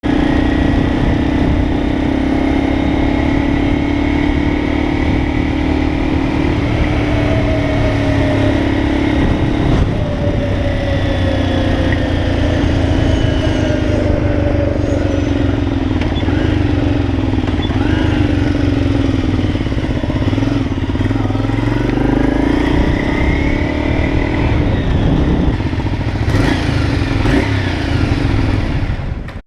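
Motorcycle engine running under way, its pitch sinking slowly at first, then revving up and falling back several times in the second half.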